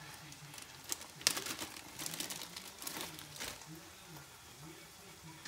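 Thin plastic bread bag crinkling and crackling as buns are pulled out of it, with one sharp crackle a little over a second in. Faint voices underneath.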